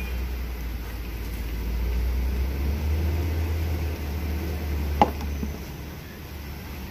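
Low, uneven rumble, with one sharp metallic click about five seconds in from hand tools working in a diesel truck's engine bay.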